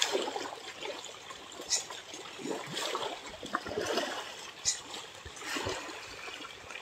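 A dense shoal of pangasius catfish thrashing at the surface of a farm pond: continuous churning and splashing of water, with a sharper splash every second or two.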